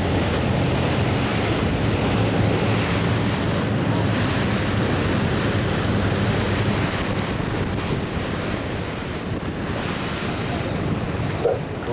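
Wind buffeting the microphone over the steady wash of open sea, with a low boat engine hum underneath that eases off about seven seconds in.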